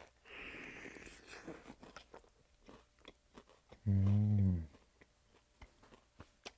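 A bite into a piece of glazed fried chicken, a soft crunch of the coating, then chewing with small wet clicks. About four seconds in, a short, loud, low hum of a voice, falling in pitch at its end.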